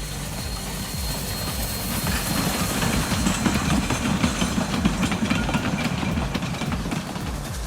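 Narrow-gauge steam train running along the track, with a steady rumble and rattle of the wheels and cars.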